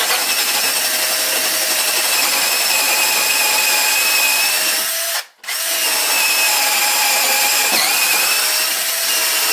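Drill with a right-angle drive attachment running under load, boring a hole through the beam and wood with a steady whine. It stops briefly about five seconds in, then starts again and keeps running.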